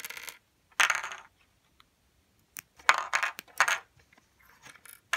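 Small plastic Lego bricks being pulled apart and set down on a table: several short bursts of clicking and clattering, with a quick run of them around three seconds in.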